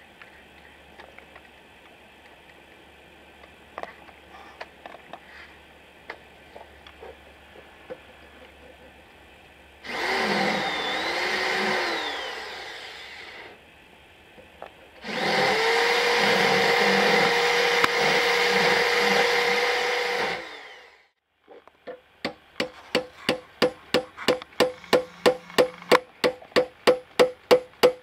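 Electric drill with a rotary burr reaming out the handle hole in an aluminium-alloy kitchen hatchet-hammer, in two runs: the first, about ten seconds in, sagging and recovering in pitch under load; the second longer and steady. Near the end, a fast run of sharp metallic taps, about three a second, growing louder.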